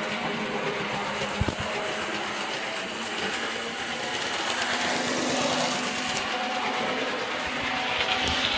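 Hornby R852 Ivatt Class 2 model locomotive running at full speed: the steady whir of its small X03 electric motor and its wheels running over the track.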